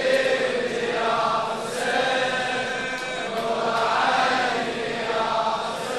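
A chorus of voices chanting a Shia latmiya refrain in unison, in long held lines that rise and fall.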